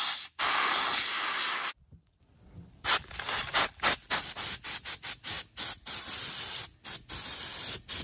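Ozito compressed-air blow gun hissing as it blows handfuls of dirt, used as makeshift blasting media, against a transmission bell housing. One long blast near the start, a short pause, then a quick run of short trigger blasts, about three or four a second.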